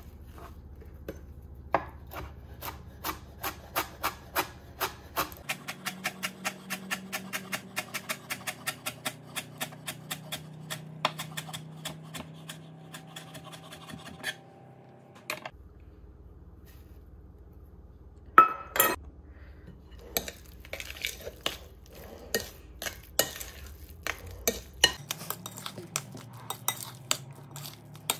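Chef's knife mincing cilantro on a wooden cutting board, a steady run of chopping strokes at about four a second. A loud clatter follows, then a spoon scraping and clinking against a glass bowl as guacamole is stirred.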